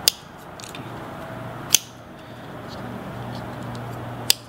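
Spyderco Dragonfly 2 back-lock folding knife being worked open and shut: three sharp clicks, one or two seconds apart, as the blade snaps into place against the back lock. Its pivot has just been adjusted and the action still feels a little tight.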